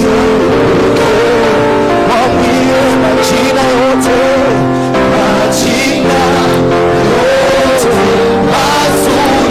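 Music: sustained held chords with a wavering, gliding melody line over them.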